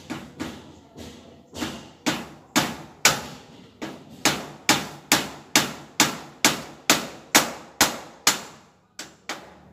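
Claw hammer striking repeatedly overhead while a steel trellis door is fitted into its doorway: about twenty sharp blows, roughly two a second, each with a short ring, with brief pauses near the start and near the end.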